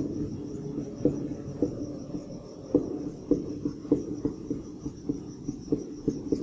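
Felt-tip marker on a whiteboard, drawing a run of small plus and minus signs: a series of short, irregular taps and scrapes, several a second.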